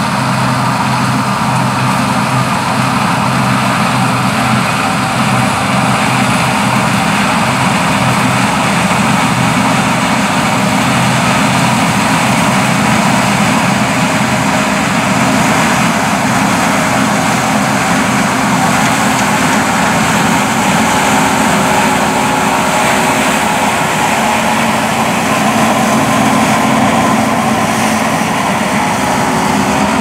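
New Holland CSX7070 combine harvester running steadily under load while cutting wheat: a continuous engine drone mixed with the hum of the working machine.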